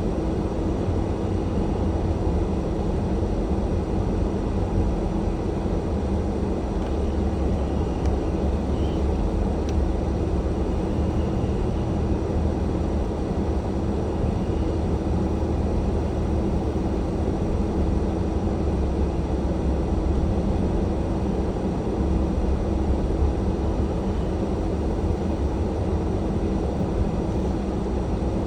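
Car driving slowly on a snow-covered street, heard from inside the cabin: a steady low engine and road rumble with a constant hum.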